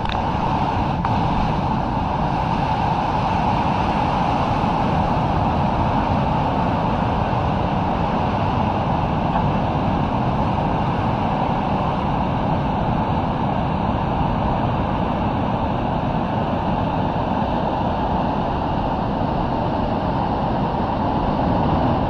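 Surf washing in and out around concrete pier pilings: a steady, unbroken rush of water with a deep rumble underneath.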